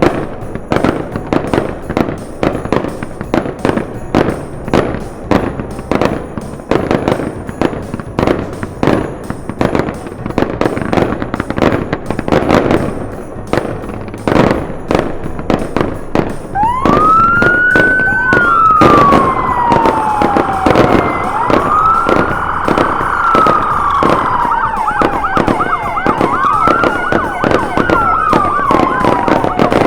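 A rapid barrage of fireworks bangs and crackles. From a little past halfway, police sirens join in, wailing up and down over the continuing bangs.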